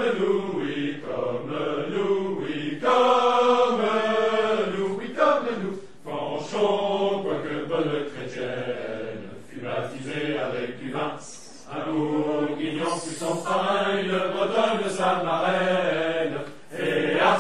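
Voices singing a chant-like song in long phrases with short breaks between them.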